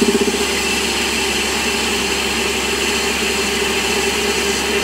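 Warco lathe running with the tool taking a facing cut across a metal pulley face. A fast, regular knocking from the interrupted cut over the old bolt hole dies away in the first half second, leaving a steady cutting and running hum.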